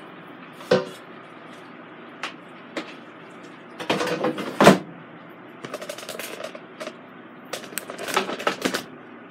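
Hard knocks and clatter of a nonstick air fryer basket being slid into a Ninja Foodi two-basket air fryer, clunking into place about four and a half seconds in. A single knock comes shortly before, and a run of small clicks and rattles follows.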